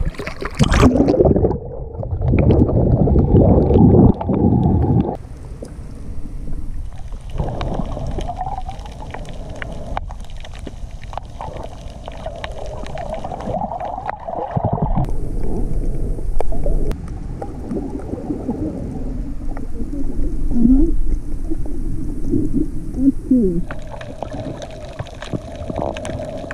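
Water sloshing and gurgling around a waterproof camera as it is dipped in and out of the sea while snorkeling, heard muffled through the housing. The sloshing is loudest in the first few seconds, and a few short bubbling gurgles come near the end.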